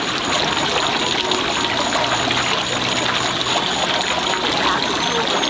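Stream water running and trickling steadily, with a high pulsing chirp repeating evenly above it.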